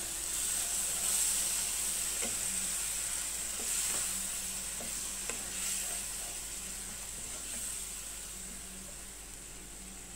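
Watery onion-tomato masala gravy sizzling in a nonstick kadai while a wooden spatula stirs it, with a few soft knocks of the spatula against the pan. The sizzle gradually dies down.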